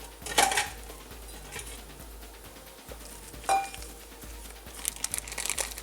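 A hard parts tray being set down on a workbench with two clacks, followed by a run of small clicks and rattles near the end.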